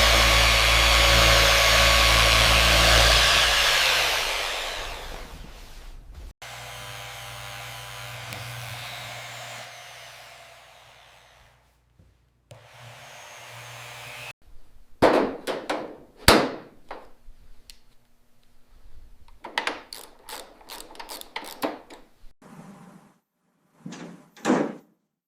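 A power tool runs loudly, then fades away over several seconds. About fifteen seconds in, a series of separate sharp knocks and clicks follows.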